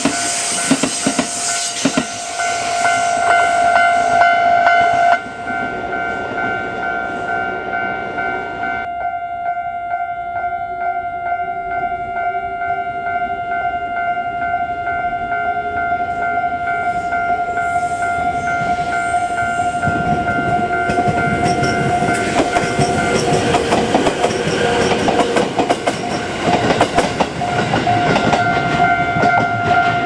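Japanese level-crossing warning bell ringing continuously while trains pass. A Kintetsu limited express clatters over the rail joints at first, and a JR Central electric train rumbles past in the last third.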